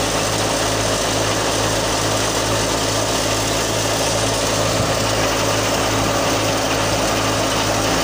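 Wheat thresher running steadily as it threshes wheat: a constant machine drone with a low hum under a broad rushing noise.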